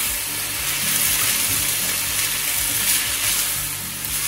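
Fried noodles and vegetables sizzling in a hot frying pan with a splash of water just added, as the noodles are lifted and tossed with wooden chopsticks. The sizzle is a steady hiss that eases slightly near the end.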